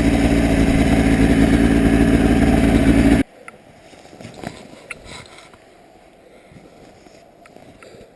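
Paramotor engine running steadily at high power, then cutting off abruptly a little over three seconds in; after that only a few faint clicks and knocks.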